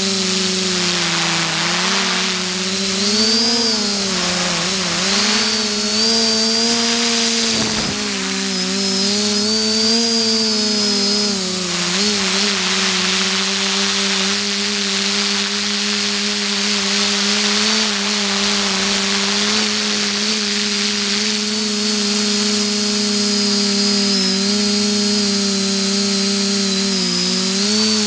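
Multirotor drone's electric motors and propellers buzzing steadily, heard from the camera on board. The pitch wavers up and down with throttle changes through the first half, then holds steady, with a thin high whine throughout.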